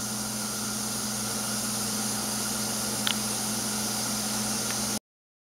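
Steady hiss and low hum of a saucepan of water heating toward the boil on an electric coil burner, with a faint tick about three seconds in. The sound cuts off abruptly near the end.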